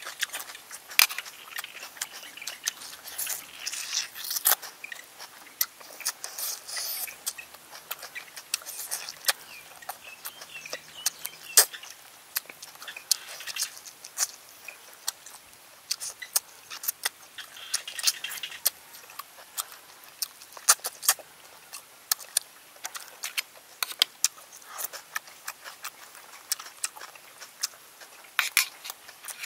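Close-up eating sounds of a person chewing snake curry and sucking the meat off the pieces, with many irregular sharp wet clicks and smacks of the lips.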